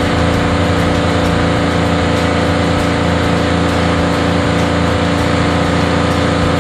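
Single-cylinder Yanmar diesel engine of a Mosa welding generator running steadily, fuelled with GTL diesel.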